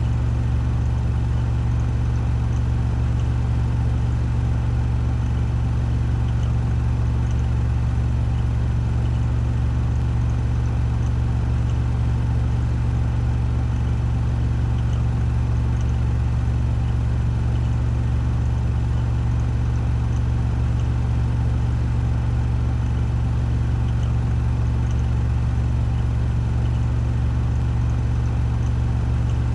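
Washing machine spinning at full speed (1400 rpm spin cycle): a steady, unbroken low hum of the drum and motor with a faint whir above it.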